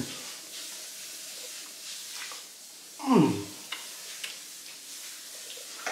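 A man eating, with a loud, short hum of enjoyment that falls steeply in pitch about three seconds in, followed by a few faint clicks. A steady low hiss runs underneath.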